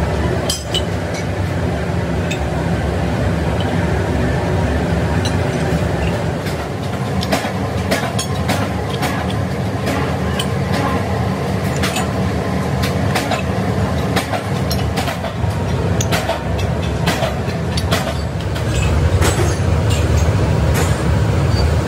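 Flat steel blade blanks cut from truck leaf springs clinking against one another as they are picked up and stacked by hand, over a steady low rumble of workshop machinery. The rumble grows louder near the end.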